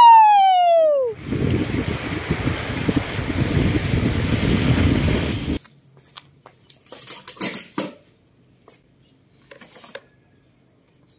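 A man's loud, long yell, falling in pitch and ending about a second in. Then a steady rush of river water with wind on the microphone, cutting off suddenly after about five seconds, followed by a few scattered clicks and knocks as the lid of a motorcycle's top box is opened and handled.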